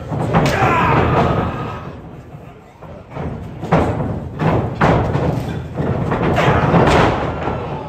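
Pro wrestlers' strikes landing on each other in the ring: a sharp smack just after the start, then a run of smacks about half a second to a second apart in the second half, with the crowd shouting between them.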